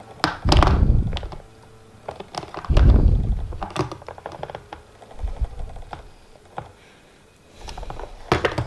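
Small plastic toy pieces being handled, clicking and clattering against each other, with two dull thumps about half a second and about three seconds in.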